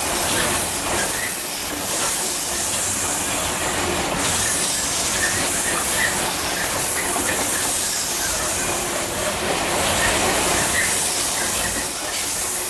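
A loaded coal train of HXA bogie hopper wagons rolling past at speed: a steady rumble of wheels on the rails with clattering over the track and occasional short, high wheel squeaks.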